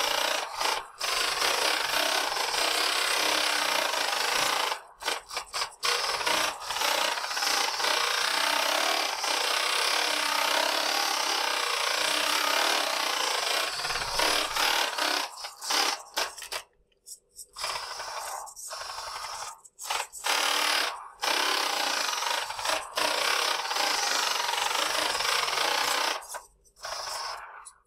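A 1/28-scale RC car's brushless motor, run by a Furitek Momentum sensorless ESC, driving the car about on a wooden desktop: a steady gritty whir of motor, gears and tyres on wood. It cuts out briefly several times as the throttle is let off, more often in the second half.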